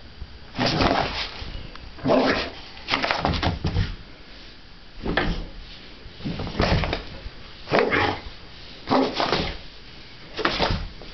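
Boxer dog barking in short bursts, about eight in all, a second or so apart.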